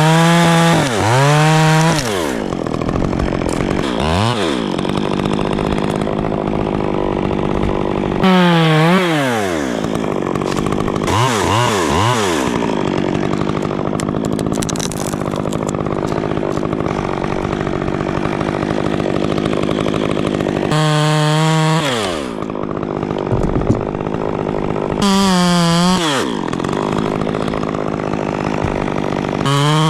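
Two-stroke chainsaw, a Stihl, running hard: it revs up to full throttle and drops back about five times, with long stretches of steady running under load in between as it cuts limbs from an oak.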